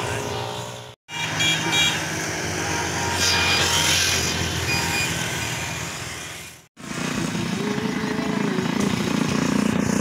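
Motor vehicles running by a road, a steady mechanical hum with a few short high tones. The sound cuts out abruptly twice.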